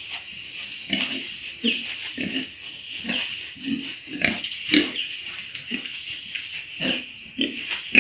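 Several pigs grunting in short, irregular grunts, one or two a second.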